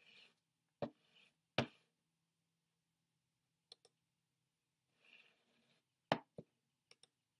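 Sharp computer clicks: a loud click about a second in, another half a second later, and two more close together about six seconds in, with faint double ticks near four and seven seconds and soft noise between them.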